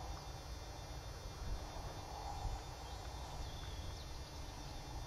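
Marsh ambience: a few faint, scattered bird calls over a steady low rumble.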